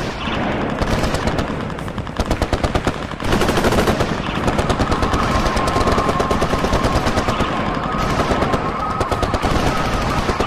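Rapid automatic machine-gun fire, continuous bursts of shots with a brief lull about three seconds in. A steady high tone runs under the gunfire in the second half.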